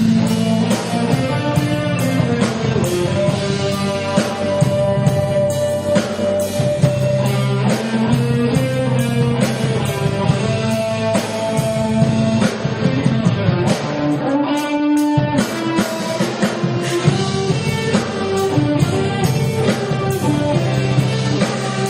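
Live rock band playing: electric guitar, bass and drum kit, with regular drum hits under sustained guitar notes.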